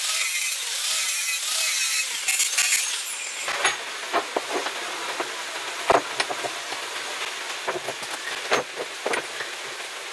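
Angle grinder with a thin cut-off disc cutting through a steel flat bar: a steady, loud, high hiss that stops about three and a half seconds in. After it come scattered sharp clinks and taps as small steel plates are handled and set on a concrete floor.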